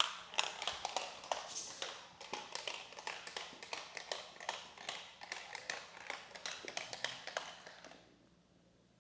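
Rapid, irregular clicking and tapping on hard plastic magnetic tiles, several clicks a second, growing fainter and dying away about eight seconds in.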